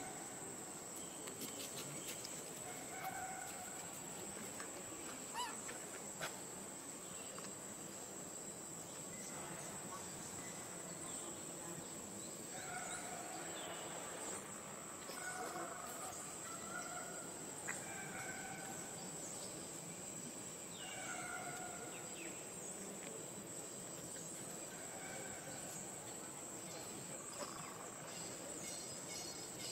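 Forest insects droning steadily at one high pitch, with short calls now and then.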